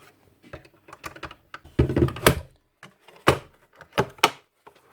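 Screwdriver and parts being handled while security Torx screws are refitted: scattered light clicks, a cluster of heavier knocks about two seconds in, then three sharp clicks.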